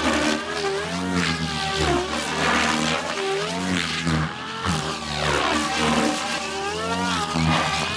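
SAB Goblin Kraken electric RC helicopter flying 3D aerobatics, its rotor and motor whine swooping up and down in pitch over and over, roughly once a second.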